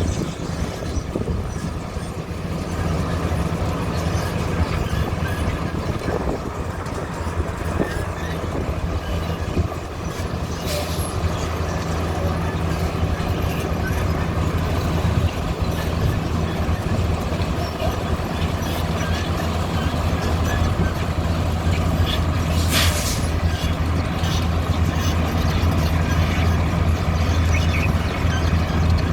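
Heavy engine of road construction machinery running steadily with a low drone, with a short hiss about 23 s in and a few light clicks.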